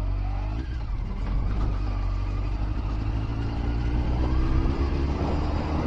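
Honda CBR900RR Fireblade's inline-four engine running while the motorbike is ridden along a street, heard from on board, its note rising slightly over the first couple of seconds and then holding steady.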